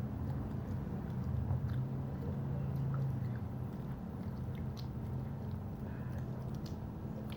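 A person chewing and biting sushi with soft, wet mouth clicks, over a steady low hum.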